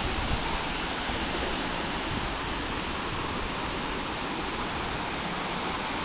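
Waterfall: falling water rushing in a steady, even hiss.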